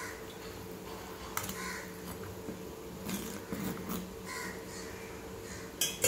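Metal ladle stirring thick curry in a clay pot, with scraping sounds about halfway through and a sharp clink of the ladle just before the end, over a steady low hum.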